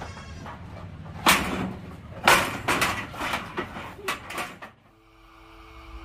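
Sharp knocks and rattles in a goat pen with a wooden slat floor and a metal-framed gate, about seven over three seconds, irregularly spaced. Near the end the sound drops away and music with held tones fades in.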